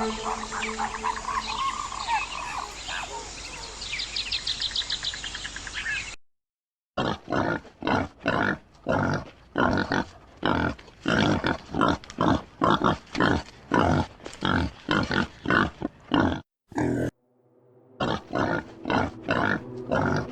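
Pig grunting in a regular run of short grunts, about two a second, broken once by a brief pause. The first few seconds hold a different, noisier animal recording with some high chirps, which cuts off abruptly.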